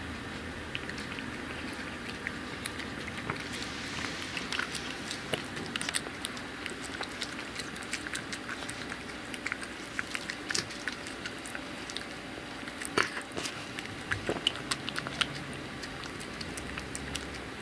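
Brown tabby-and-white cat eating a soft jelly cat treat from a small dish: chewing and licking, heard as many small irregular clicks of the mouth.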